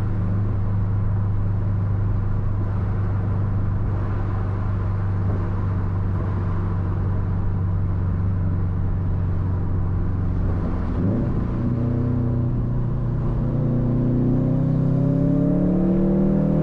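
2013 Subaru WRX STI's turbocharged 2.5-litre flat-four running through a Tomei Expreme Ti titanium turboback exhaust: a steady drone at cruise, then about eleven seconds in the note dips briefly and the revs climb steadily under acceleration.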